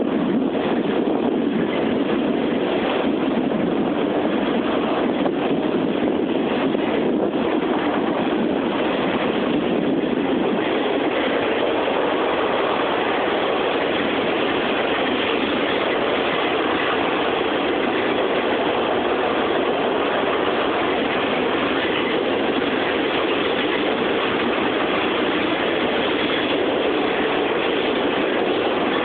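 CSX intermodal freight train's double-stacked container cars rolling past: a steady, unbroken rumble of steel wheels on rail.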